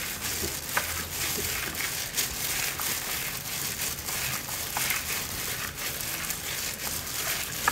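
Gloved hand kneading sliced raw beef in a bowl: the thin plastic glove crinkling and the wet meat squishing, in an irregular run of small rustles and clicks.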